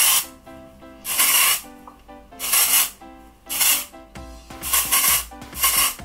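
Kristin Ess texturizing hair spray being sprayed onto hair: five short hissing sprays, each under half a second, about a second apart.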